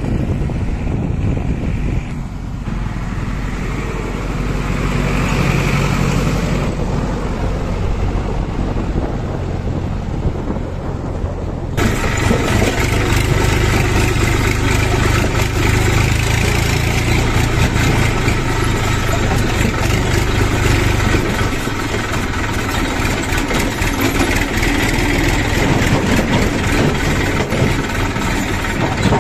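Tractor diesel engine running steadily under way, heard from the driver's seat of a Massey Ferguson tractor on a dirt track. Before that, about the first twelve seconds hold road-vehicle engine noise while following a JCB backhoe loader on the road, cut off abruptly at a change of scene.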